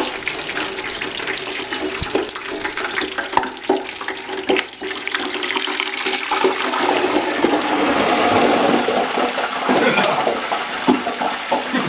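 Oreos sizzling and bubbling hard in the hot oil of an electric deep fryer, a loud rushing sizzle that swells about six seconds in, with a few light knocks early on.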